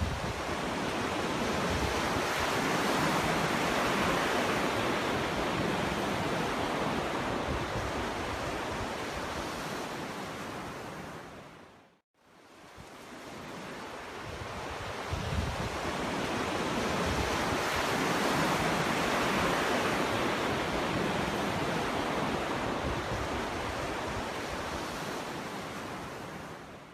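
Ocean waves breaking on a beach: two long washes of surf, each swelling up and fading away over about twelve seconds, with the sound dropping out almost completely for a moment between them about halfway through.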